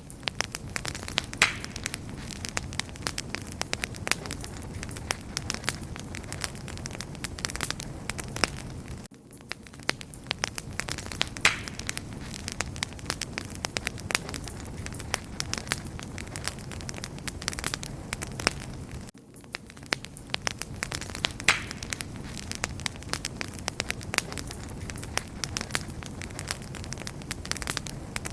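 Wood fire burning steadily, with dense, irregular crackles and pops over a low rumble and hiss. It is a loop: the same stretch repeats about every ten seconds, with a brief dip in level at each join.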